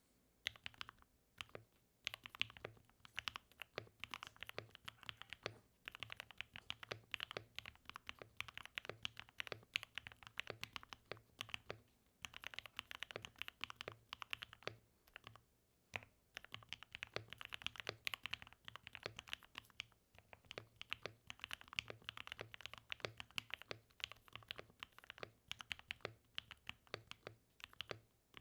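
Continuous typing on a Mode 80 mechanical keyboard with lubed and filmed Gateron Black Ink v2 linear switches, PBT keycaps and an FR4 plate: quick runs of keystrokes with short pauses every few seconds.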